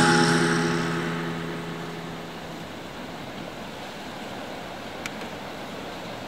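A held closing music chord fading out over the first two seconds or so, leaving the steady wash of sea surf breaking around rocks.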